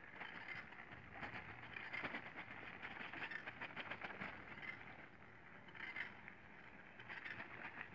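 Bicycle rolling over a rough dirt road: tyres crunching on loose grit, with many small irregular clicks and rattles from the bike jolting over the bumps.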